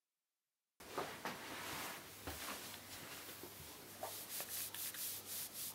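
Clothing rustling as a hand rubs and pats someone's back in a hug, over a low steady hum. It starts suddenly about a second in.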